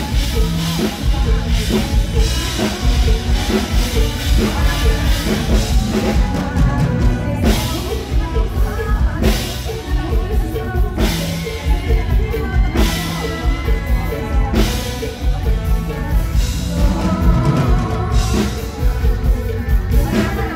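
Live full-band music with a woman singing into a microphone over drum kit, bass and electric guitar, played loud through a stage PA. From about seven seconds in, loud crashes land roughly every two seconds over a steady pulsing bass.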